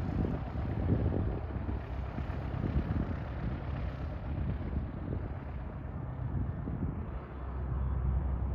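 Wind buffeting the microphone over the distant engine noise of a Cessna Citation CJ2+ business jet rolling out on the runway. About seven seconds in, a steadier low engine drone comes up from a small single-engine propeller plane taxiing close by.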